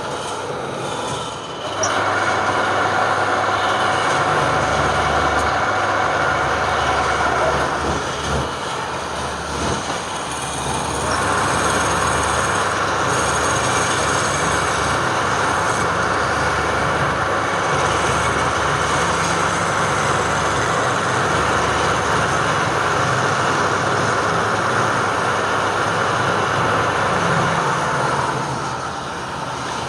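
A woodworking machine running and working wood: a steady low hum with a loud cutting noise over it. The noise steps up about two seconds in, eases for a few seconds around the eight-to-eleven-second mark, then holds steady until it drops near the end.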